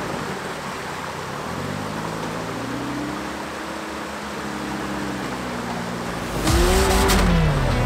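Solid-axle-swapped Toyota pickup's engine revving up and down under load as it crawls a rocky obstacle, over a steady rush of water. About six and a half seconds in it revs hard and loud, with a burst of noise, before easing back.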